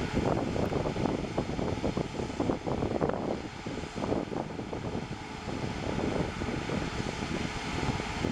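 Airbus A350-900's Rolls-Royce Trent XWB jet engines rumbling at takeoff power, with wind buffeting the microphone.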